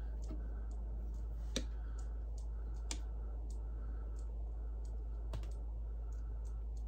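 Scattered sharp clicks from the AEA Challenger Pro PCP air rifle being handled on the bench rest, the loudest about a second and a half in, over a steady low hum.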